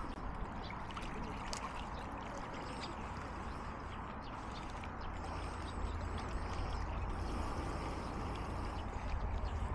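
Steady outdoor background noise with a low rumble of wind on the microphone, and a few faint high chirps from small birds.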